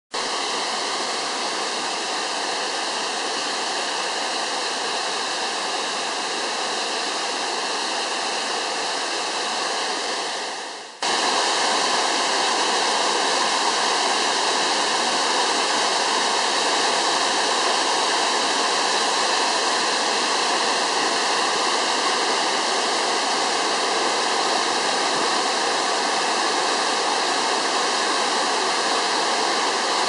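Waterfall's steady, even rush of falling water. About ten seconds in it briefly fades out, then cuts back in a little louder.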